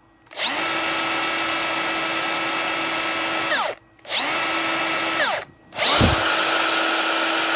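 Makita HR008G 40V brushless cordless rotary hammer run with no load in three bursts of about three, one and a half and two seconds. Each burst spins up with a rising whine and winds down with a falling one. The third is louder and rougher and starts with a thump.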